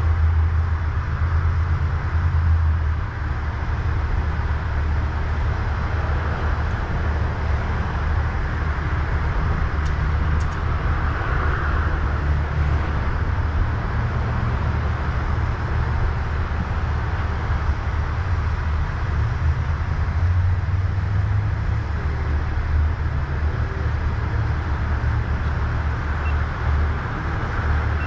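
Steady low rumble with a hiss over it, a continuous vehicle-like background noise with no distinct knocks or tool strikes standing out.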